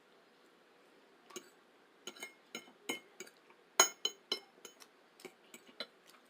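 Eating utensil clinking and tapping against a dish, a quick irregular run of a dozen or so light clinks that start about a second in, loudest near the middle.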